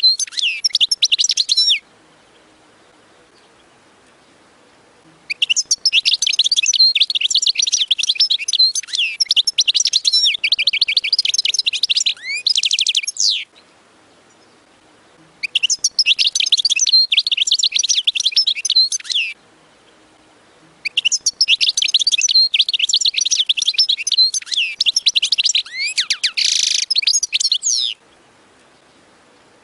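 European goldfinch singing: four bursts of rapid, twittering song, each a few seconds long, with pauses of two to three seconds between them.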